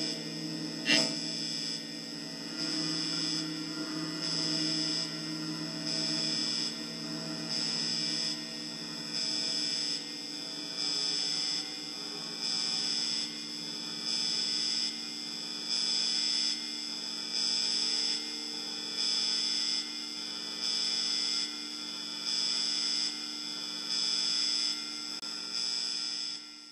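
A steady electronic drone of many held tones, swelling louder and softer in an even pulse about every one and a half seconds. A sharp click sounds about a second in, and the drone fades out quickly at the end.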